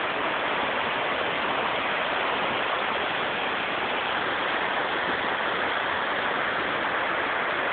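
River water running down a smooth rock slab and spilling into a pool: a steady, even rushing.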